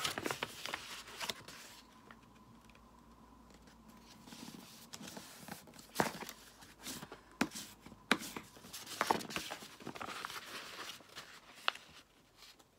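A sheet of paper being folded by hand and its creases pressed flat: crisp rustling and scraping, with several sharp taps and clicks in the second half.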